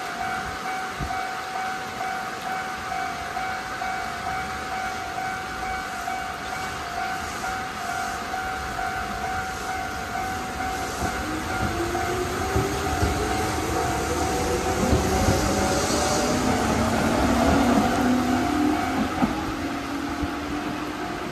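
Shizuoka Railway 1000 series chopper-controlled electric train pulling out: a steady high electrical tone, then a motor whine that rises in pitch as it gathers speed from about halfway through. Heavy rain hisses underneath.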